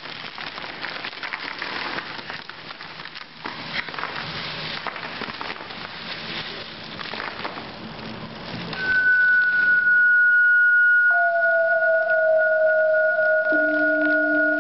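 Ice cubes and water being poured and scattering over a stage floor: a clattering, splashing hiss for about nine seconds. Then a loud, steady high pure tone comes in. A lower steady tone joins about two seconds later, and a third, lower still, comes in near the end.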